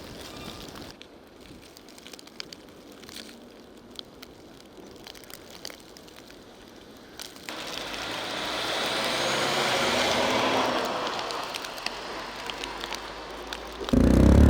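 A vehicle passes, its tyre and road noise swelling and fading over several seconds. Near the end a loud engine cuts in abruptly, close by.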